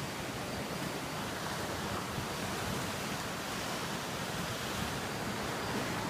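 Ocean surf breaking on a rocky shore: a steady wash of waves.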